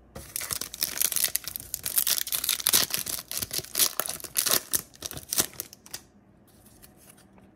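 Foil Yu-Gi-Oh! booster pack wrapper being torn open and crinkled in the hands: a dense, crackling rustle of foil that lasts about six seconds, then dies away.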